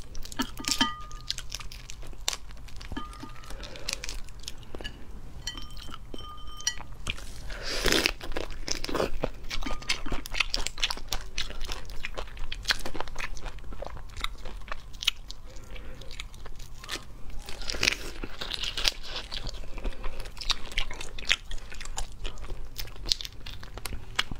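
Raw shrimp being peeled by hand close to the microphone: the thin shell and legs crackle and click in a dense run of small snaps, with wet chewing among them and louder crunchy bursts about eight seconds in and again near eighteen seconds.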